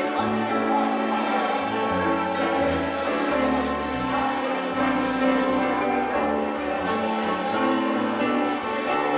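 Music playing: sustained chords over a bass line that shifts every second or so.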